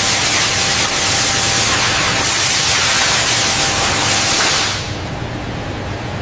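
A loud, steady hiss like static or spraying air, with a faint steady tone beneath it. It drops to a much quieter hiss a little before five seconds in.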